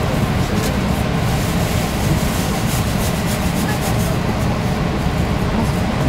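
Interior running noise of a JR Hokkaido KiHa 183 series 5200 diesel railcar at speed: a steady low rumble of the train running on the rails, heard from inside the car.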